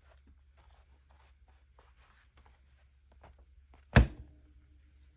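Light scratching and rustling handling sounds over a low steady hum, then a single loud thump about four seconds in with a brief ringing after it.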